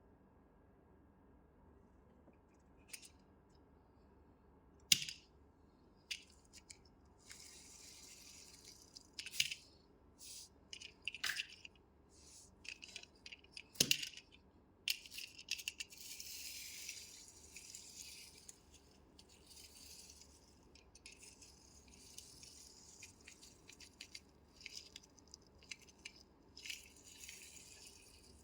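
Small plastic toys and packaging being handled: scattered sharp clicks and taps, the loudest about five seconds in and near fourteen seconds, then steady crinkly rustling from about seven seconds in.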